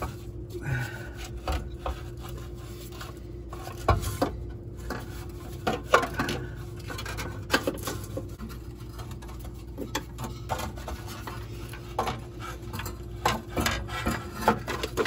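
Metal exhaust parts rubbing, scraping and knocking as a loosened catalytic converter is worked out of a tight space under a minivan. The knocks are scattered and irregular, the loudest about four and six seconds in, over a steady hum.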